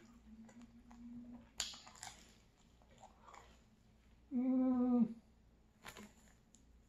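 Close-up mouth sounds of eating a slice of pizza: sharp bites and chewing clicks, one about a second and a half in and another near six seconds. About four seconds in comes a hummed "mmm" of enjoyment, steady in pitch and under a second long, the loudest sound.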